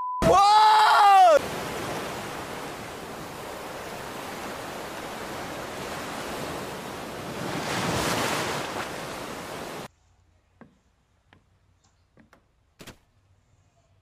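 Rushing noise of breaking surf and churning whitewater, swelling about eight seconds in and cutting off abruptly near ten seconds. It is preceded by a brief loud shout right at the start, and followed by a few faint knocks.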